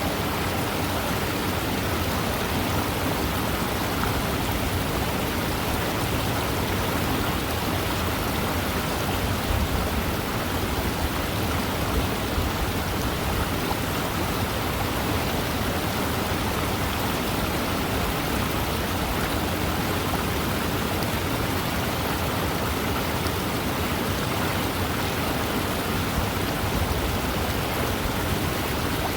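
Waterfall: a steady, unbroken rush of falling water, even in level throughout.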